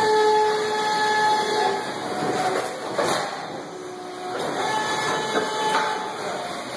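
Plastic injection moulding machines running, a steady mechanical noise with held whining tones that come and go at a couple of different pitches, the longest near the start.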